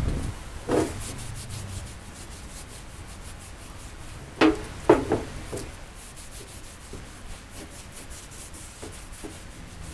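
A rag rubbing quickly back and forth over a wooden plate, wiping it down with solvent. A few louder knocks stand out, once about a second in and twice around the middle.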